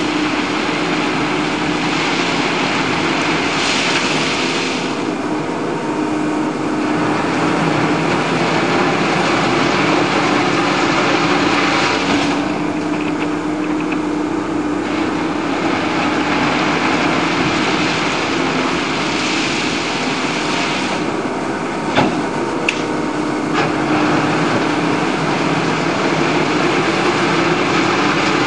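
Diesel engine of a rail-mounted excavator running steadily, revving up and down several times as the machine works. A single sharp knock about two-thirds of the way through.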